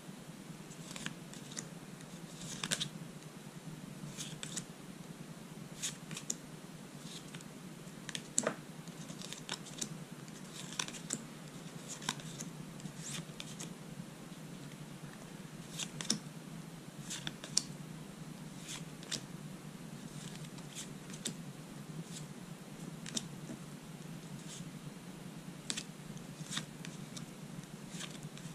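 Pokémon trading cards being flipped one at a time off a hand-held stack: short, sharp card snaps and slides at an irregular pace, about one every second, over a steady low hum.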